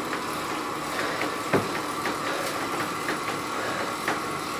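Bicycle turning on a CycleOps PowerBeam resistance trainer under hard pedaling: a steady whir with a whine from the tyre on the roller, faint regular ticks, and one sharper knock about a second and a half in.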